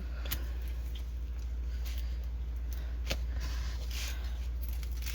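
Steady low hum with a couple of faint clicks, about a third of a second in and about three seconds in.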